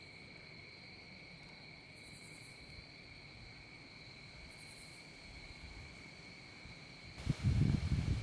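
Steady, high-pitched insect buzzing in the forest, a constant drone. About seven seconds in, a louder low rushing noise comes in over it.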